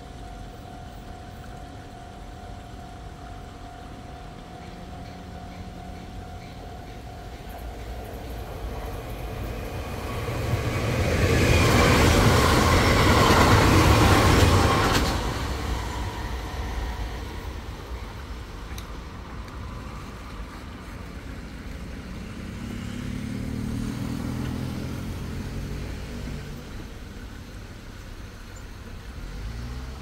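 A Kintetsu Kyoto Line electric train passes through a level crossing, building up and going by loudly in the middle, then fading. Before it, the crossing's warning bell rings steadily. Afterwards a road vehicle's engine revs up as traffic moves off over the crossing.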